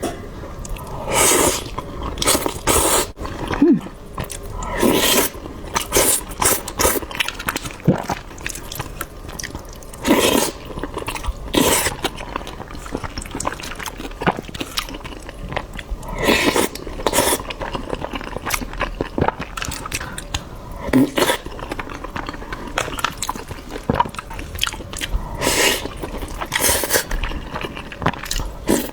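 Close-miked eating of shrimp and soft scrambled egg: biting and chewing, heard as irregular short bursts every second or two.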